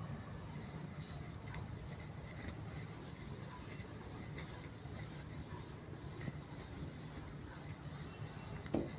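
Faint rubbing of a duster wiping marker off a whiteboard, over a steady low room hum, with a brief louder low sound near the end.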